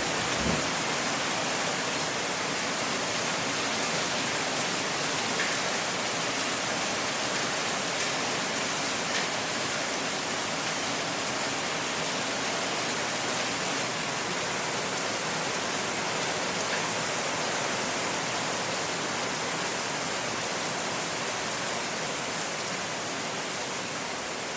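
Hail falling: a dense, steady hiss of countless small impacts, with a few louder single hits standing out now and then.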